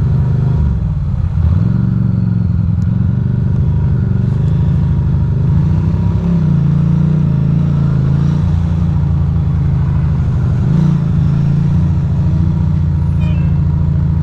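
Ducati Monster's V-twin engine running under the rider, its pitch dipping and rising a few times as the throttle is opened and closed in city traffic.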